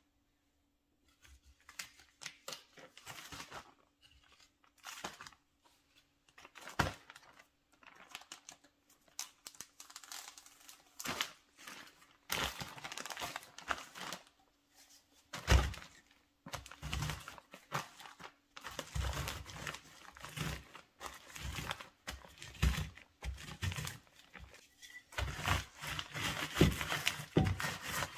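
Clear plastic zip-top bag crinkling as peanut butter cookies are handled into it, with scattered crackles. In the last few seconds the cookies are crushed inside the bag with a rolling pin, giving denser crunching and dull thuds.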